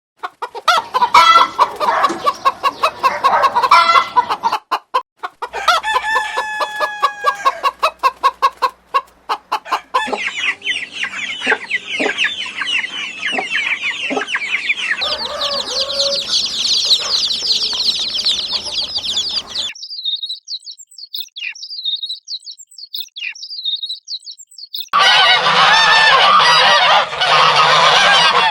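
Chickens clucking, heard as a run of short clips joined by abrupt cuts, with stretches of dense high chirping. A thicker, noisier flock sound comes in near the end.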